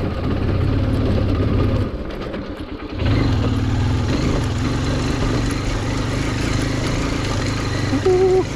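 Honda XR150L's single-cylinder four-stroke engine running as the bike is ridden over a rough stone-and-dirt trail. The throttle eases off about two seconds in, then the engine pulls again steadily. A short tone sounds near the end.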